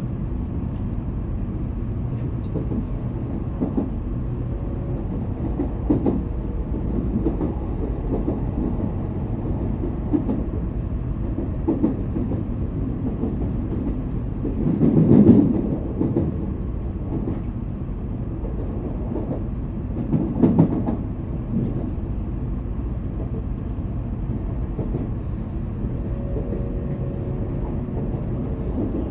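Tokaido Shinkansen train heard from inside the passenger car, running slowly into the terminus with a steady low rumble. About halfway through there is a louder clunking swell, and another follows about five seconds later, as the wheels cross points or joints.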